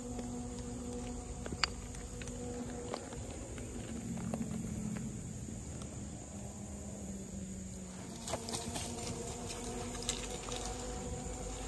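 Insects, likely crickets, chirping steadily in a high band, with a low buzz that comes and goes. Scattered light clicks run through, with a cluster of them about eight and a half seconds in.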